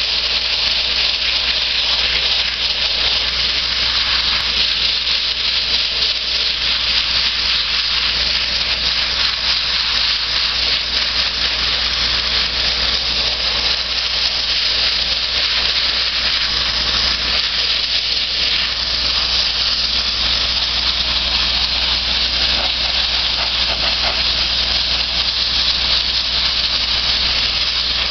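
Wet abrasive blasting (water-and-sand blasting) nozzle hissing continuously as it strips paint off a car bonnet, over a steady low rumble.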